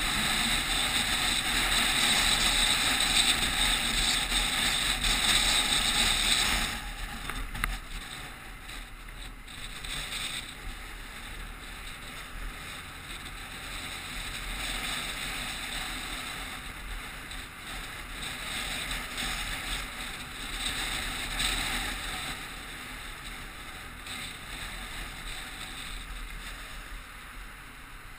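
Wind and road noise rushing over a motorcycle-mounted camera's microphone while riding on wet tarmac: loud at first, dropping suddenly to a softer, uneven rush about seven seconds in.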